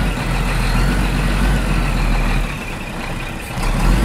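Plastic toy bus pushed by hand over loose gravel and stones, its wheels and body crunching and scraping on the rocks, over a steady low rumble.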